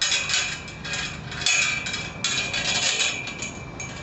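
Irregular metallic rattling and clinking of a metal tube gate being handled, in uneven spells that are loudest about halfway through.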